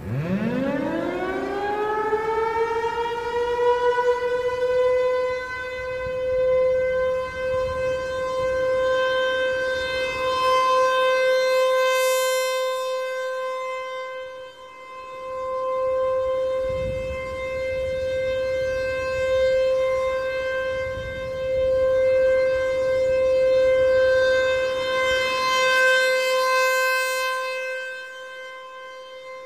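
American Signal Corporation Tempest T-135 AC/DC rotating outdoor warning siren sounding its steady alert tone. It winds up from a low growl to a steady high tone within about five seconds. The sound then swells and fades every several seconds as the rotating head sweeps toward and away from the listener.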